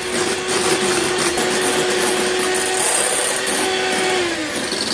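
Electric hand mixer running steadily, its twin beaters whipping chilled full-fat cream in a glass bowl as the cream thickens toward stiff peaks. Its motor hum drops in pitch near the end as it winds down.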